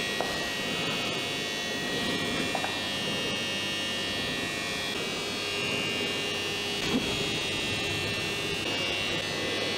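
Steady electrical buzz: a high whine over a low hum, with a few faint clicks.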